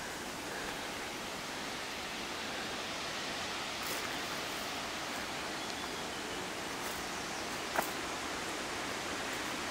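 Steady outdoor background hiss, with a few faint clicks and one sharper click near the end.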